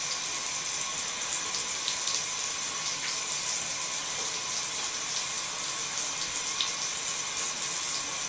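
Water running steadily from a bathtub tap into the tub, an even hiss.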